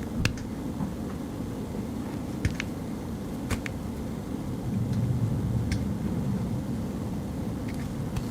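Small folding scissors of a Victorinox Classic SD snipping fingernails: several short, sharp clicks a second or two apart, each cutting a small piece of nail. A steady low rumble runs underneath.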